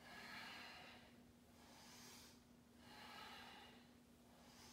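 Faint, slow, deep human breathing, swelling in and out about once every second and a half, over a faint steady hum.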